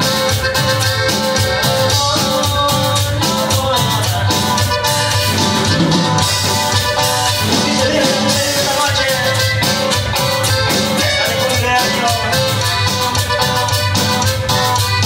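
Live Latin dance band playing: accordion over electric guitar, keyboard and drum kit, with a fast, even percussion rhythm.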